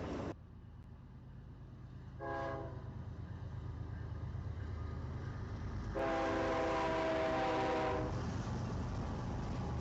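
Diesel locomotive air horn sounding a short toot and then, about six seconds in, a longer blast of about two seconds, over the steady low rumble of the locomotive's diesel engine.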